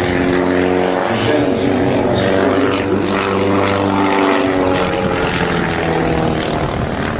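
Propeller aircraft engine droning steadily, its pitch shifting a little partway through.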